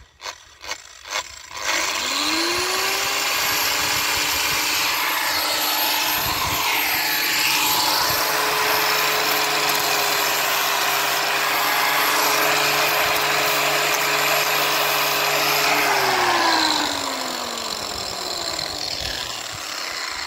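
Corded angle grinder, drawing its power from a portable power station, switched on after a few clicks. It spins up with a rising whine and runs free with its disc touching nothing for about fourteen seconds. Then it is switched off and winds down with a falling whine.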